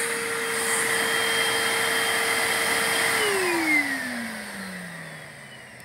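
Vacuum cleaner serving as the suction source for a Lego vacuum engine, running with a steady whine. About three seconds in it is switched off and the whine falls in pitch as the motor spins down. A brief knock comes partway through the wind-down.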